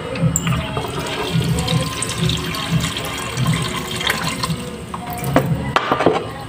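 Water running, with music playing underneath.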